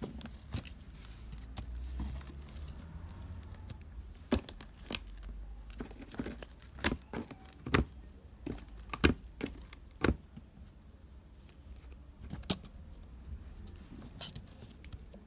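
Cats scrabbling and pawing inside a cardboard box: irregular sharp scratches and taps of claws on cardboard, densest through the middle.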